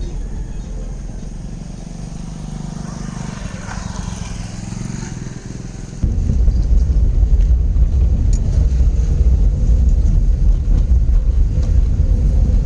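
A vehicle on the move: a steady low engine and road rumble. About six seconds in it turns abruptly louder and rougher.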